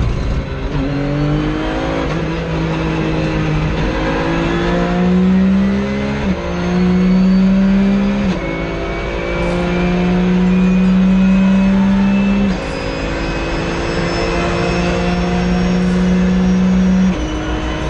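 Porsche 911 GT3 Cup race car's flat-six engine at racing speed, heard from inside the cockpit. The pitch climbs and then drops sharply at each of about five gear changes.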